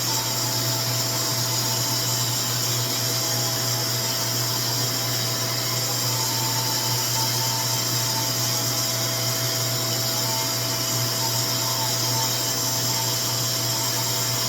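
RevAir reverse-air hair dryer running on low heat, sucking a section of hair into its tube: a steady, kind of loud rushing air noise with a low hum and a constant thin whine.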